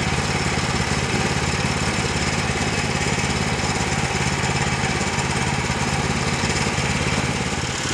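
Small gasoline engine of a portable bandsaw sawmill running steadily at an even speed.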